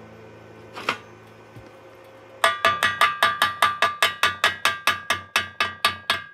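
Chipping hammer rapping on the freshly welded corner of thin galvanized square tubing, knocking off the slag; each blow makes the tube ring like a bell. The fast, even strikes, about five a second, start about two and a half seconds in.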